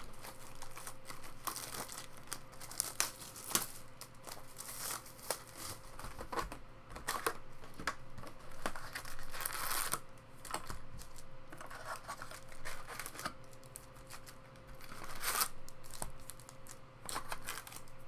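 Plastic wrapping torn and crinkled in irregular crackling bursts as a sealed trading-card hobby box is opened and its wrapped card packs are handled and pulled out. A faint steady hum runs underneath.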